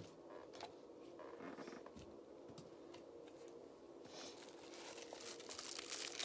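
Faint handling noise: plastic glue bottles picked up with light knocks and clicks, then crinkly rustling that grows near the end.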